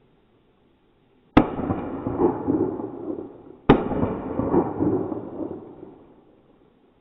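Two shotgun shots about two seconds apart, each followed by a long rolling echo that dies away over a couple of seconds.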